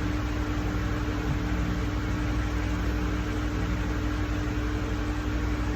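Steady background hum and hiss with a faint constant tone underneath, unchanging throughout.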